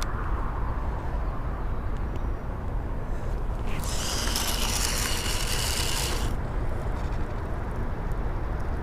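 A fishing reel whirring as line runs off or onto the spool, about two and a half seconds long midway through, over a steady low rumble.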